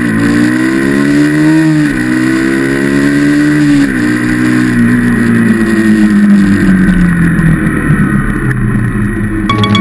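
Motorcycle engine accelerating, rising in pitch through two gear changes with a sharp drop at each, then easing off with the pitch sinking slowly, over a steady rush of wind noise.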